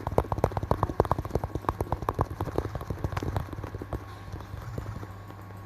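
Fingers tapping quickly on a surface, several sharp taps a second, thinning out and dying away after about three and a half seconds, over a steady low electrical hum.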